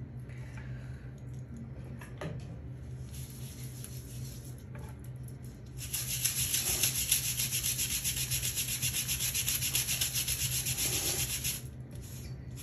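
Stiff-bristled scrub brush scrubbing a soft foam bath toy in rapid back-and-forth strokes. The scrubbing starts about halfway through and stops shortly before the end.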